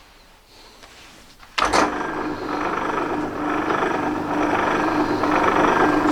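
A workshop machine tool starts with a sharp onset about one and a half seconds in and runs steadily with a humming tone, getting a little louder as it goes.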